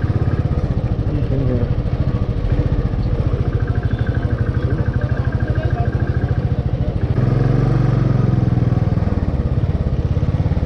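Motorcycle engine running under way, a steady rapid firing pulse. The engine picks up and revs rise about seven seconds in.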